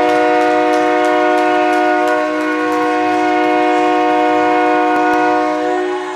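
Ice hockey arena goal horn sounding one long, steady chord, signalling a goal just scored.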